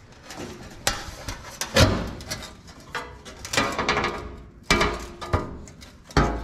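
A new sheet-steel floor pan section clanking and rattling as it is handled and set down on the car body: a series of sharp metallic knocks, the loudest about two seconds in.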